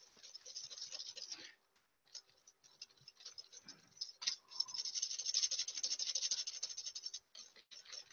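Hand whisk beating runny egg yolks, icing sugar and passion fruit juice in a bowl over a bain-marie, whisking a sabayon: a rapid, scratchy patter of the whisk against the bowl. It stops briefly about a second and a half in, comes back lighter, and picks up more strongly about four seconds in.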